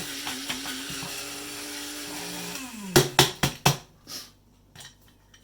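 A small electric motor whirring at a steady pitch, then winding down about two and a half seconds in, followed by four quick sharp knocks.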